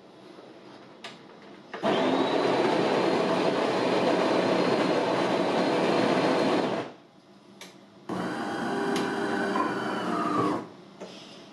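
DeLonghi Magnifica ESAM 3000.B coffee machine's built-in burr grinder grinding beans: a loud, steady grinding that starts about two seconds in and stops after about five seconds. After a short pause, a second, somewhat quieter motor run from the machine follows for about two and a half seconds, with a faint whine.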